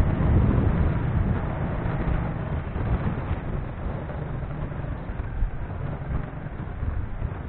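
Steady low rumble of a vehicle riding along a street, with wind buffeting the microphone.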